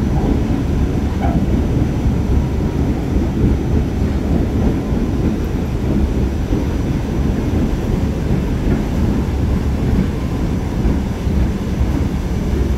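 Staten Island Railway R44 subway car running along the line, heard from on board: a steady, even low rumble of wheels on rail and car running gear.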